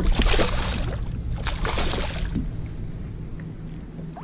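A hooked redfish thrashing and splashing at the water's surface as it fights against being netted: two bursts of splashing about a second and a half apart, over a low rumble.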